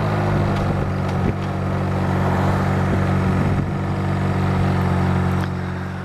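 Honda Rebel 250's small air-cooled parallel-twin engine running at a steady, low engine speed, with wind and road rush over it. The sound fades out near the end.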